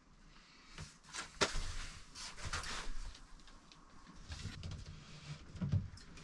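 Handling noises: scattered knocks and scrapes, with a sharp knock about a second and a half in and another near the end.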